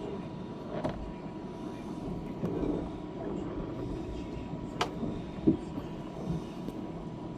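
Storm wind rumbling steadily around a docked sailboat, with a few sharp knocks, the loudest about five and a half seconds in.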